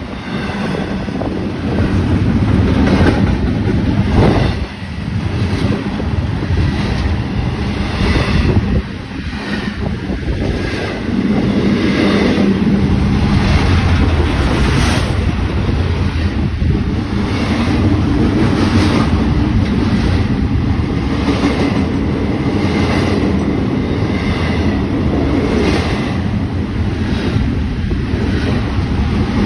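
A freight or passenger train rolling past close by: a steady deep rumble with a regular clatter of wheels over rail joints, and wind buffeting the microphone.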